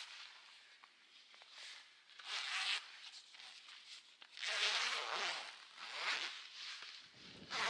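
Four short rustling, scraping noises, the longest lasting under a second, with a low bump in the last one.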